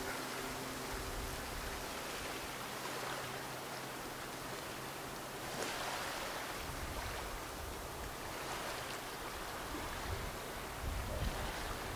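Steady outdoor wash of sea water and breeze along a rocky shoreline, with a faint low hum that fades out about halfway through.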